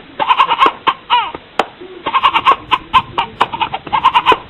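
Ram-like bleating, a string of short quavering 'béé' bursts with sharp clicks between them.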